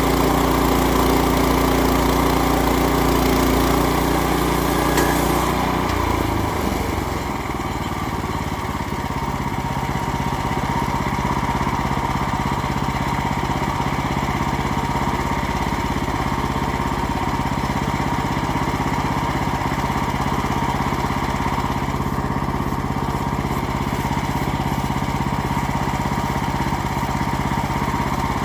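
Gas engine of a portable bandsaw sawmill running steadily with its blade sawing through hard white oak, with a high hiss over the engine. About six seconds in the hiss drops away and the engine note shifts lower and settles, with a thin steady whine running on.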